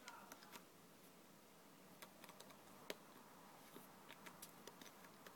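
Near silence with faint, irregular clicks and taps scattered through it, one a little sharper about three seconds in.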